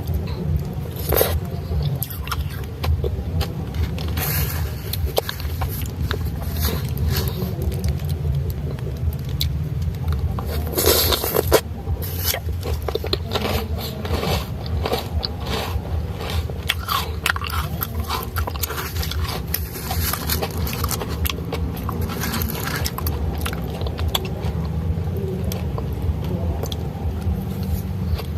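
Close-miked eating of Thai shaved ice (nam khaeng sai): a spoon scraping the ice and ice being bitten and crunched between the teeth, in irregular crackly bites with a louder cluster partway through. A steady low hum runs underneath.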